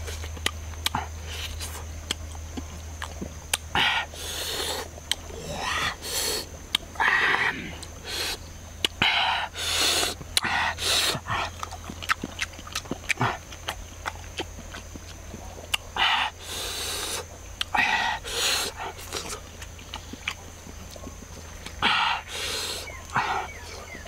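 Close-miked eating sounds: a man chewing and smacking his lips on fish and watermelon, in short bursts a few times a second apart with small wet clicks in between.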